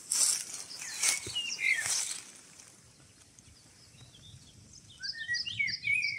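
Footsteps rustling and crunching through dry leaves and brush for the first two seconds. Near the end a small songbird sings a quick run of short chirping notes.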